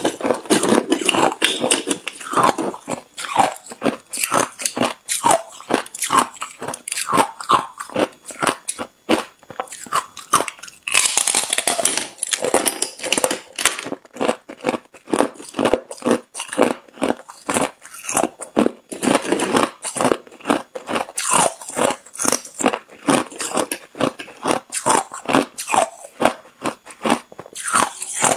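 A person biting and chewing thin slabs of hard clear ice up close: a quick run of sharp crunches and cracks, denser around eleven to thirteen seconds in.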